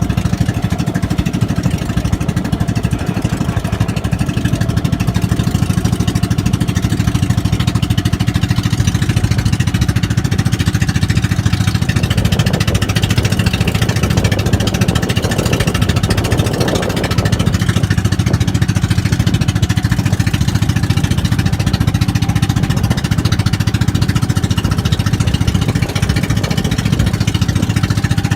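A boat's engine running steadily with a low, even chug, with a louder noisy stretch for a few seconds about halfway through.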